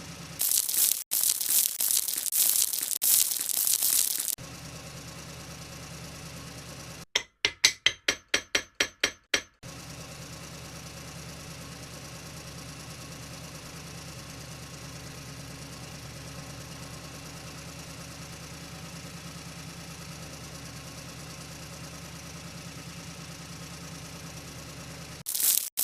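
Steady low hum of a concrete mixer truck's engine idling. Near the start and again at the very end it gives way to a loud rough rushing noise lasting a few seconds, and about a third of the way in there is a quick run of about eight sharp clicks, roughly three a second.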